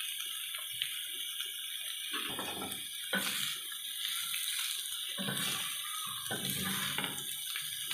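Chicken, onion, capsicum and tomato strips sizzling in a frying pan. Stirred with a spatula, which adds several short scraping strokes over the steady hiss.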